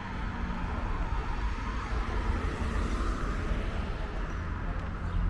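Steady road-traffic noise of a city street: a continuous low rumble of vehicles with a slight swell in the middle.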